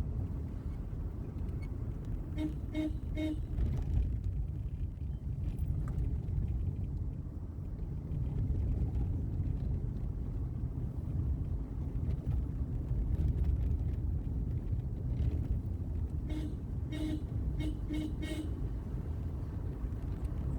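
Steady low rumble of a car driving, with two brief groups of short, evenly spaced tones.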